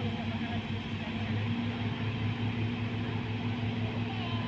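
Diesel engines of two hydraulic excavators running steadily under load while lifting a container, a low pulsing drone that grows a little stronger about a second and a half in.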